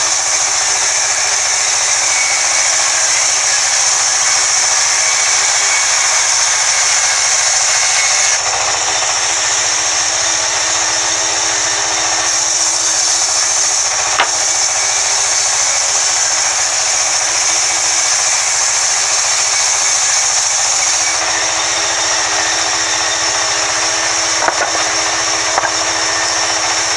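Large sawmill band saw running steadily with a motor hum and a high hiss as its blade saws through a thick wooden slab. A couple of sharp clicks stand out, one about halfway and one near the end.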